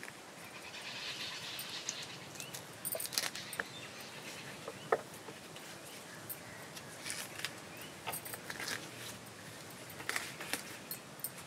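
Hands peeling the tough skin off a leather jacket fish with a cloth on a wet wooden board: soft rubbing and scattered small clicks, with a short chirp about five seconds in.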